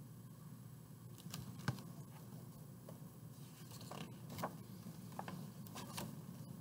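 Pages of a large hardcover picture book being handled and turned: faint paper rustles and small taps. The sharpest tap comes about one and a half seconds in, with several more over the last few seconds.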